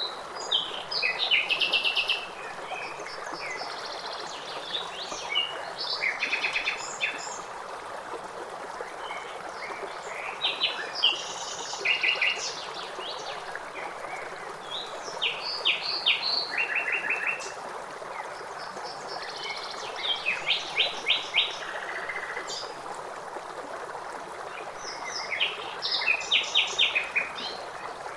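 A blackbird singing in short phrases every four or five seconds, each with runs of quick repeated notes, over the steady rush of flowing water.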